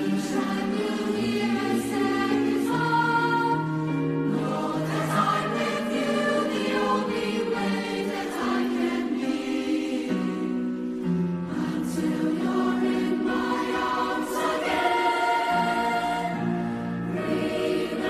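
Mixed-voice youth choir singing slow, held chords, the voices moving together from one sustained chord to the next.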